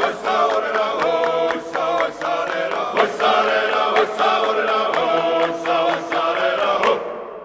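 Group of voices singing a chant-like song in several parts, with sharp regular beats; it fades out at the end.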